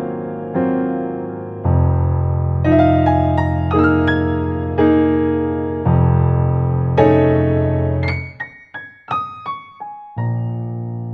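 Background piano music: slow chords struck over held low notes, with a short run of single high notes about eight seconds in before the chords resume.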